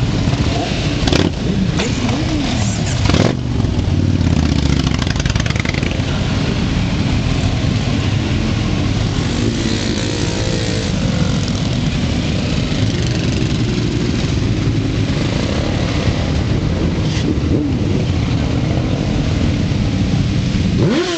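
A slow-moving column of motorcycles riding past, their engines running together in a steady rumble, with the occasional rev rising and falling in pitch.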